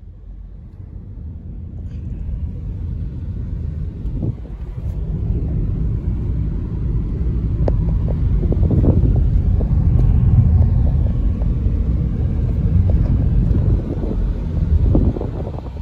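A car driving along a country road, heard from inside: a low rumble of road and engine noise that grows louder over the first several seconds as the car picks up speed, then holds steady with a few brief surges.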